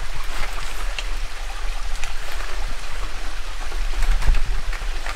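Steady rush of flowing water, with a few scattered light clicks and a low rumble that swells briefly about four seconds in.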